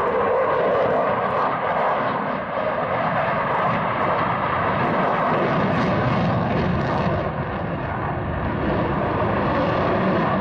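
Eurofighter Typhoon's twin EJ200 turbofan jet engines giving a loud, steady rush of noise that deepens in pitch over the seconds.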